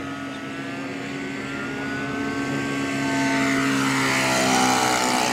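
Saito-powered RC Hurricane model aircraft's engine and propeller running at speed on a low pass. It grows louder as the plane closes in, and its pitch drops as it goes by about four seconds in.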